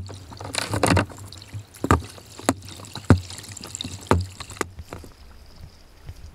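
Kayak paddle strokes: the double-bladed paddle's blades dipping into the water in a series of sharp splashes roughly a second apart over running water. After about four and a half seconds it drops to a quieter steady wash of water.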